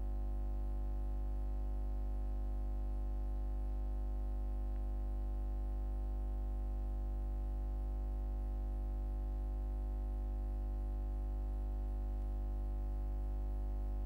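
Steady electrical mains hum, a low buzz with a stack of overtones, unchanging throughout.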